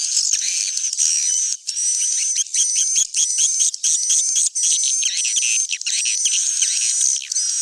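Edible-nest swiftlets twittering: a dense, steady mass of high-pitched chirps with a fast run of short repeated chirps in the middle. This is a swiftlet 'roosting call' recording, the kind played in a swiftlet house to make the birds settle and stay.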